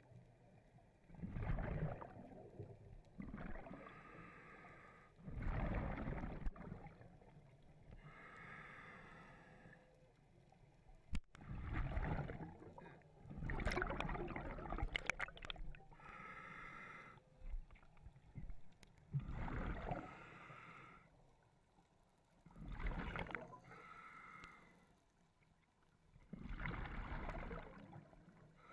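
Scuba diver breathing through a regulator underwater: a hissing inhale, then a rumbling burst of exhaled bubbles, repeating about every four seconds, some seven breaths in all.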